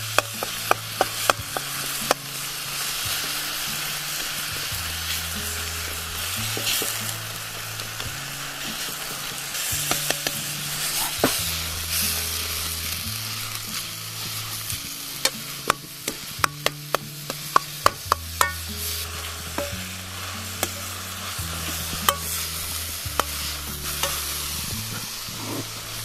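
Minced meat sizzling in a wok as it is stir-fried with a metal ladle, the ladle clinking and scraping against the pan many times. Soft background music with a low bass line runs underneath.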